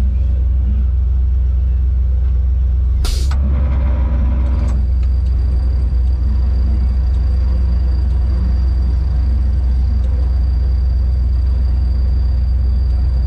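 Competition winch truck's engine idling, a loud steady low rumble heard from inside the cab. About three seconds in there is a short, sharp burst of hiss-like noise, followed by a brief pitched sound lasting about a second and a half.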